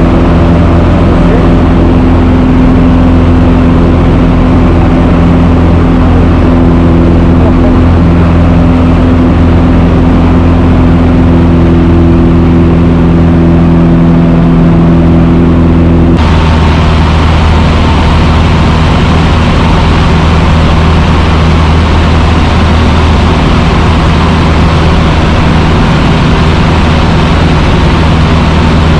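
Cessna 150's four-cylinder Continental O-200 engine and propeller running steadily in cruise, a loud, even drone. A little over halfway through the tone shifts abruptly and a brighter hiss comes in.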